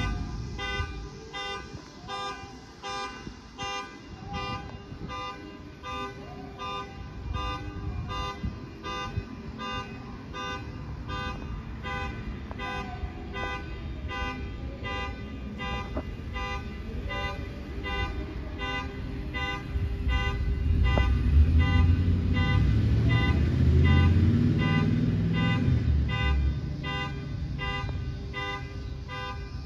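Rhythmic beeping: several steady tones pulsing evenly over and over. A low rumble swells about twenty seconds in and fades some six seconds later.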